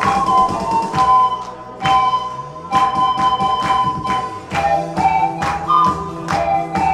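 Pan flutes playing a slow melody of long held notes over a backing track with a steady drum beat and bass.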